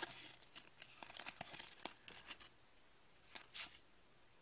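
Hockey trading cards being flipped through by hand: faint, scattered light snaps and slides of card stock against card, with one louder brush about three and a half seconds in.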